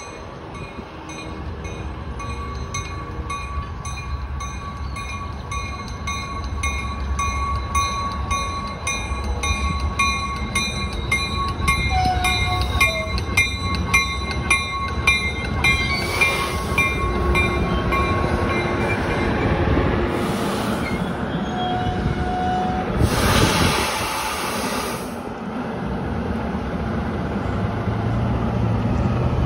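Trinity Railway Express commuter train pulling into a station, its rumble growing louder, with a bell ringing over the first half. Near the end of the ringing it gives way to three sharp blasts of air hiss from the train's air system as it comes to a stop.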